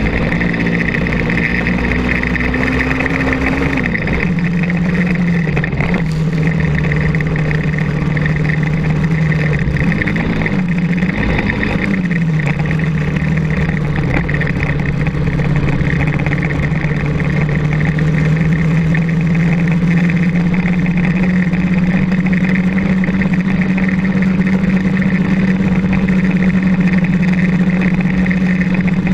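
Kart cross buggy's engine, heard from on board, running under throttle across a dirt track. Its pitch climbs, drops sharply about four seconds in, dips and wavers around ten to twelve seconds in, then climbs slowly for the rest.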